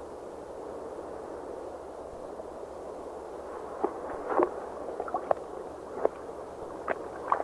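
Underwater ambience: a steady watery wash with scattered short gurgles and blips, which come more often from about four seconds in.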